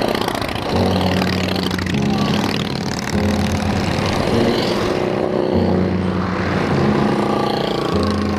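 Motorcycles riding past, among them a Harley-Davidson cruiser, over a steady low drone that steps between two pitches about every second.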